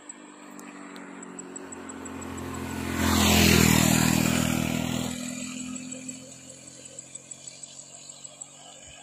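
A motor vehicle driving past: its engine grows louder over the first three seconds, is loudest about three to four seconds in, then fades away by about six seconds.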